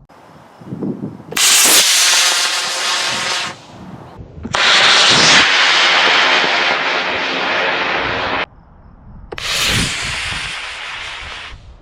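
An Estes D12-5 black-powder model rocket motor burning with a loud, hissing rush. It comes in three separate bursts, each starting and cutting off abruptly.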